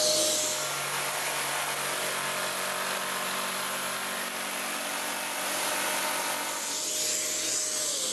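An electric power tool working wood, running together with a Kärcher WD3.600MP wet-and-dry vacuum that it has switched on automatically through the vacuum's tool socket to draw off the dust. Right at the end, a motor's pitch starts to fall as it winds down.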